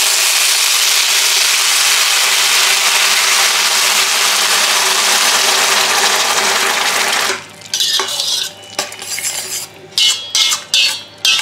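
Hot water poured into a hot stainless steel kadai of fried masoor dal, onions and spices, setting off a loud, even sizzle that stops suddenly about seven seconds in. After that a metal spatula scrapes and taps against the steel pan in short strokes as the dal is stirred.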